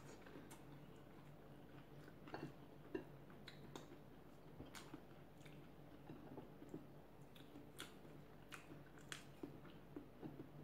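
Faint chewing and scattered soft clicks and ticks of someone eating by hand, fingers working through rice on a plate.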